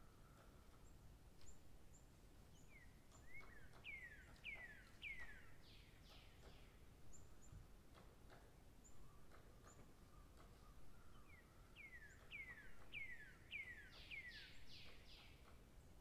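Faint songbird song: two phrases, about 3 and 12 seconds in, each a quick run of five or six whistled notes that each slide downward, with thin high notes between them.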